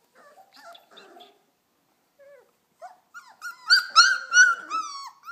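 Four-week-old Bernedoodle puppy whining and yelping: after a few faint soft sounds, a quick run of about six short, high-pitched whines, each dropping in pitch, starts about three seconds in.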